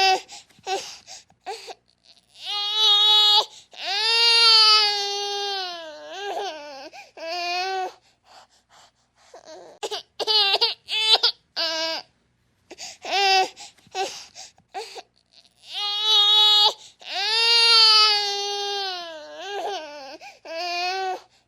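Baby crying: short cries and long drawn-out wails, with pauses for breath between bouts.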